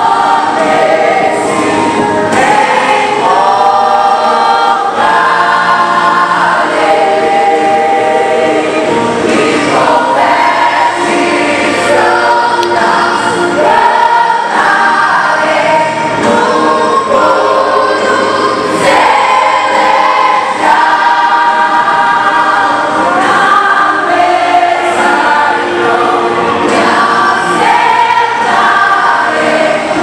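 Teenage church choir singing a worship song together, many voices at once, heard from among the singers. The singing is loud and carries on without a break.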